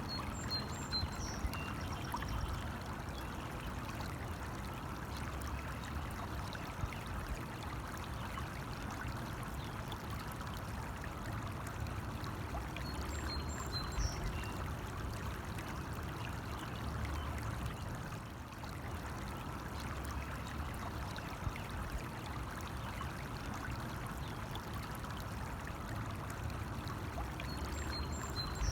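Stream running steadily, a continuous babble of flowing water.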